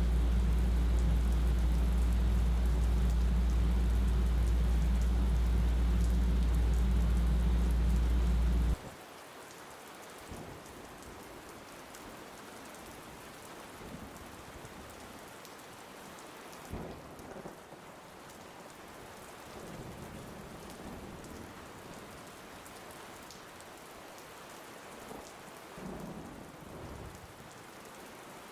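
Rain: a loud, steady downpour with a deep rumble that cuts off suddenly about nine seconds in, leaving lighter rain with scattered drips.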